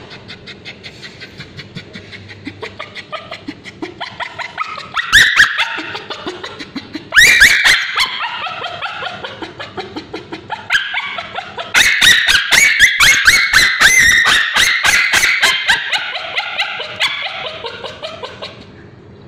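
Male Bichon Frise whimpering, then screaming in loud, high-pitched cries about five and seven seconds in, and in a long run of rapid yelping screams from about twelve to seventeen seconds. The dog is screaming in distress while ointment is applied to skin sore with scabies.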